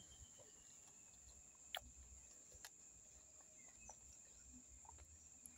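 Near silence: faint outdoor ambience with a steady high-pitched buzz and a couple of small clicks near the middle.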